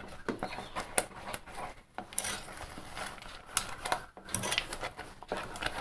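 A spoon stirring thick rice-flour paste in an enamel saucepan, making irregular scrapes and clinks against the pot. The paste is being kept moving without pause as it thickens over low heat, so it does not catch on the bottom.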